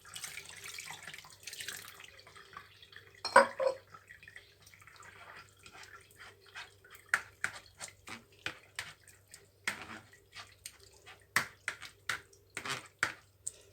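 Cold water being poured into a pot for the first couple of seconds, a loud knock about three seconds in, then scattered drips and light clinks.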